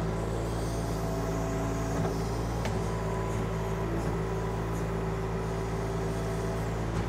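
Kubota diesel engine of a KYMRON XH26 mini excavator running at a steady working speed while digging, with a couple of faint knocks about two and three seconds in.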